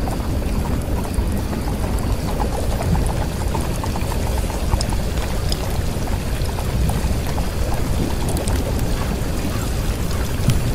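Steady rain-like rushing noise, heaviest in the deep low end, with scattered faint crackles.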